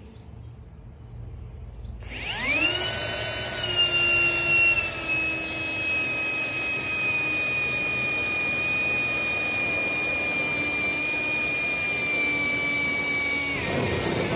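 Cordless drill with a step drill bit boring through the steel hood's sheet metal. About two seconds in the motor spins up to a steady high whine. It runs for roughly eleven seconds, its pitch sagging slightly under the cutting load, and winds down near the end.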